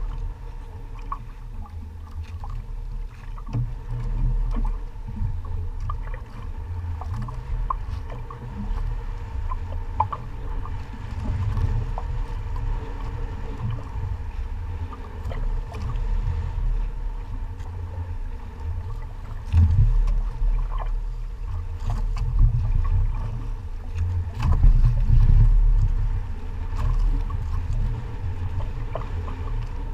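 Low, uneven rumble of wind buffeting the microphone and water moving around a small outrigger fishing boat, swelling twice in the second half, with a few faint clicks.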